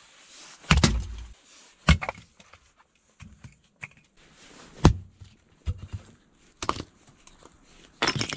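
Split firewood pieces knocked together and set down onto a pile: a string of sharp wooden clacks and knocks, about six, a second or so apart.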